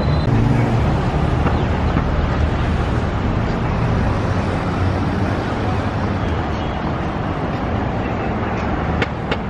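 Steady road traffic noise of passing cars, with a low engine hum in the first second or so and two sharp clicks near the end.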